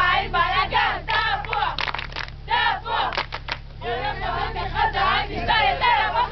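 A group of voices chanting and shouting together, with several sharp hand claps in the middle.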